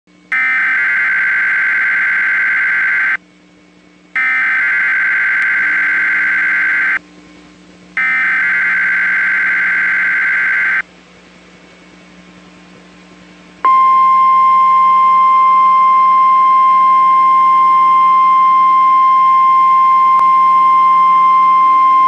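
NOAA Weather Radio emergency alert opening: the SAME digital header sent three times as buzzy data bursts, each about three seconds long with a short gap between, then, about fourteen seconds in, the single steady high warning alarm tone that precedes a watch or warning bulletin, here a tornado watch.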